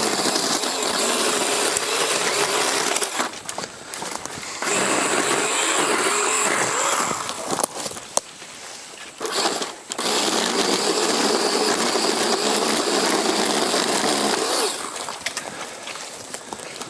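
Power saw running at high speed in long bursts, easing off and speeding up again between cuts, as brush and small trees are cut away.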